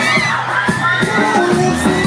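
Crowd of fans screaming and cheering, with high rising and falling shrieks, over live pop music with a stepping bass line.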